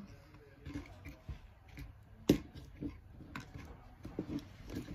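Scattered small clicks and taps of pliers working on a trimmer power cord's wire to strip off its insulation. One sharp click comes a little over two seconds in.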